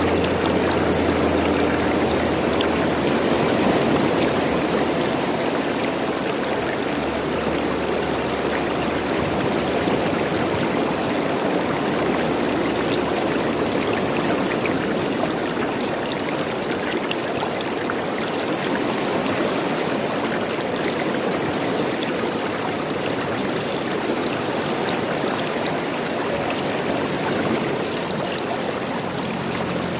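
Running water gurgling, a steady even flow with no breaks.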